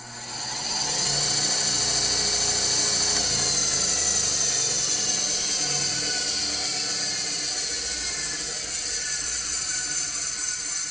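Small 9-inch Delta benchtop bandsaw running with no load: the motor comes up to speed over about the first second, then runs steadily with a high-pitched whir from the motor, wheels and blade. This is a test run after adjusting a blade guide bearing.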